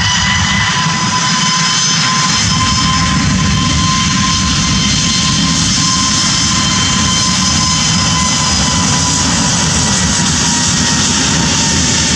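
Airbus A321neo's CFM LEAP-1A turbofans running at high thrust as the jet rolls down the runway for takeoff: a loud, steady rush with several high whining tones over it. The lowest whine falls slightly in pitch near the end as the aircraft moves past.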